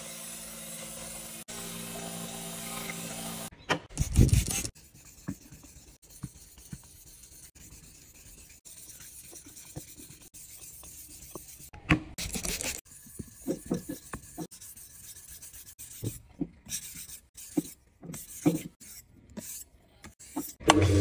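A small belt grinder runs with a steady hum while a steel paint scraper is held to its belt. About three and a half seconds in it cuts to the scraper's edge being rubbed back and forth across whetstones in uneven scraping strokes, with a few louder knocks.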